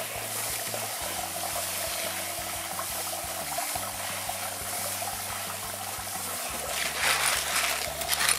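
Garden-hose spray nozzle spraying water onto a colander of tumbled stones, rinsing off the tumbling grit slurry between tumbling stages. Near the end the splashing grows louder and clattery as the wet stones are stirred by hand.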